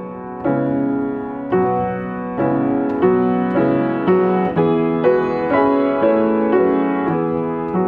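Yamaha upright piano played slowly in an improvised melody, notes and chords struck one after another and left to ring. They come about once a second at first, then about twice a second from some three seconds in.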